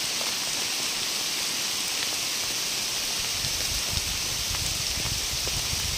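Steady rain falling on grass and leaves, an even hiss, with a low rumble joining about halfway through.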